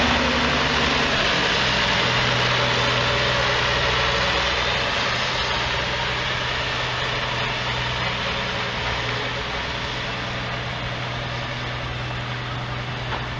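Antique farm tractor engines running as tractors pull past and idle in a lineup: a steady low engine hum that slowly gets quieter.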